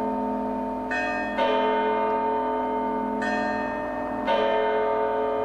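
Church bells ringing, with fresh strikes about a second in, at a second and a half, past three seconds and past four seconds, each ringing on under the next.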